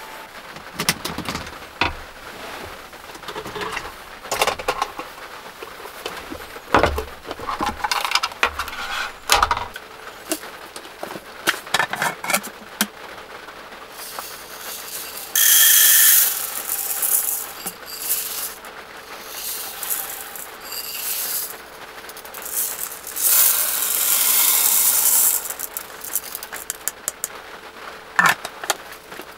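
Dry rice grains poured from a clear cup into a small electric rice cooker's non-stick inner pot, a hissing rattle about two seconds long late on. Earlier come handling clicks and knocks and a brief loud hiss about halfway through.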